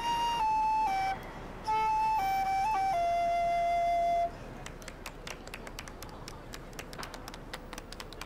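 A slow melody on a flute-like wind instrument: a few held notes that step down and end on a long low note about four seconds in. Faint scattered clicks and ticks follow.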